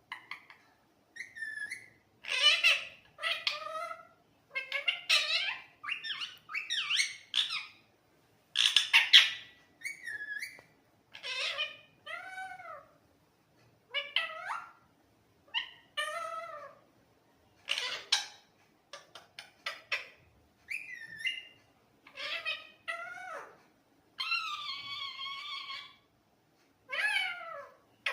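A pet parrot calling and chattering in a long run of short bursts, many with sliding whistle-like pitch, separated by brief pauses. Near the end comes one longer, steady call.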